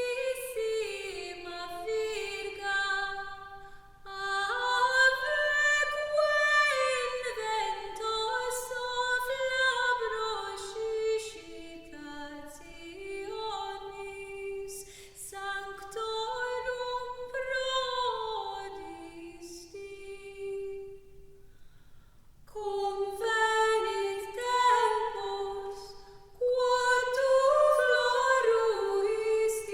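Slow, sparse vocal music: a single female voice singing a flowing melody with little or no accompaniment, breaking off briefly about three quarters of the way through before it resumes.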